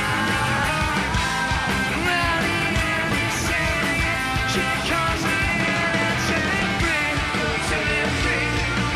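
Hard rock band playing live: distorted electric guitars, bass and drums, with a male lead vocal.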